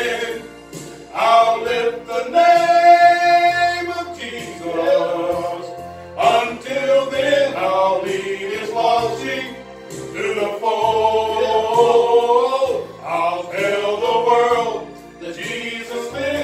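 Gospel group singing in harmony over instrumental accompaniment with a bass line, holding long notes now and then.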